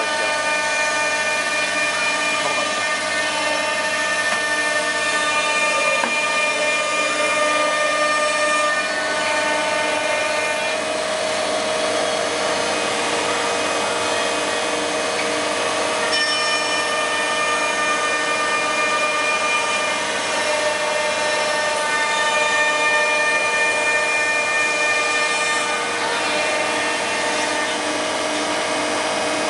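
Three-spindle CNC router's spindles running and routing solid wood parts, a steady mechanical whine made of several high steady tones over a rushing noise. The set of tones thins about ten seconds in and fills out again about sixteen seconds in.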